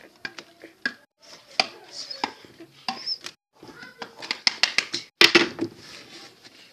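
Uno cards being shuffled and dealt onto a table: scattered sharp clicks and taps, with a quick run of clicks about four seconds in and a louder brief rustle just after five.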